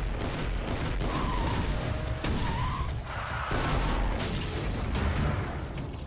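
Cartoon battle sound effects of a car's energy attack: a continuous rumbling, crackling blast with two short warbling electronic tones, over background music.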